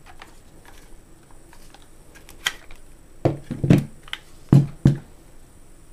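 Clicking and knocking of a Smith & Wesson M&P15-22 rifle's polymer receivers being taken down and handled, with small clicks at first and then several sharp, loud knocks a little past three seconds in and again about four and a half seconds in as the parts are set down on the table.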